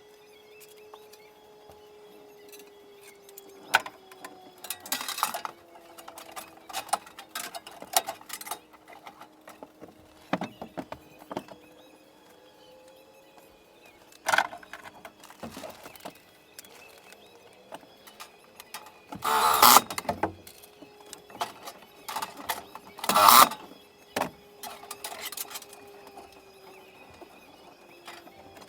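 Scattered knocks and clicks, with short bursts of scraping or rustling noise, the loudest twice near the middle of the second half, over a faint wavering hum.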